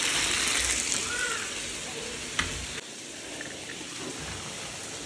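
Chicken breast pieces sizzling in a frying pan in hot oil and the juices they have released. There is a click about halfway through, after which the sizzle is quieter.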